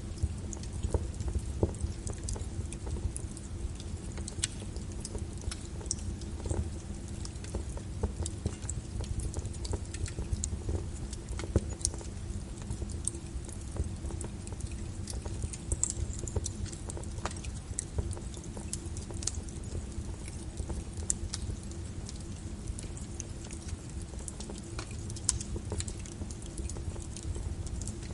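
Wood fire burning in a fireplace: a low steady rumble of flames with sharp, irregular crackles and pops of burning wood.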